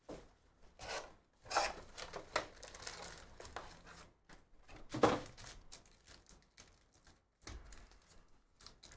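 A cardboard trading-card hobby box being torn open by hand and its foil-wrapped card packs pulled out and handled: irregular tearing, rustling and crinkling, with the sharpest rustle about five seconds in.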